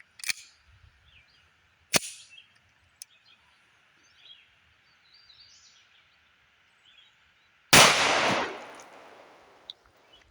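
A single .45 ACP pistol shot from a Tisas M1911 about three-quarters of the way through, the loudest sound, trailing off over a couple of seconds. It is fired with hollow points at water jugs. Two sharp short knocks come before it, one near the start and one about two seconds in.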